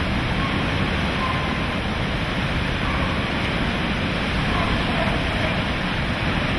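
Steady rushing noise of Hurricane Katrina's storm surge churning through a structure, mixed with hurricane wind.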